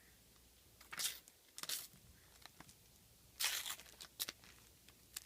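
Panini sticker packet being torn open: a handful of short rips of the paper wrapper, the longest about three and a half seconds in.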